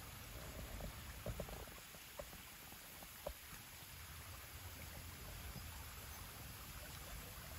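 Gentle water lapping on a stony shore, with wind rumbling on the microphone and a few faint short knocks in the first few seconds.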